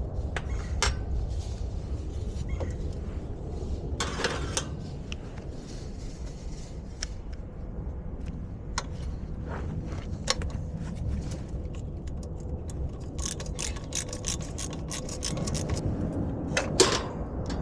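Scattered clicks, taps and scrapes of hand tools and small metal parts being handled, thickest about two-thirds of the way through, over a steady low rumble.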